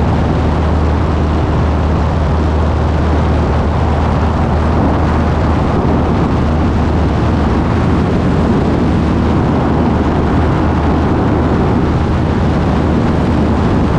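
Single-engine piston light plane's engine and propeller running at full takeoff power through liftoff and climb-out: a steady low drone under a loud rush of air.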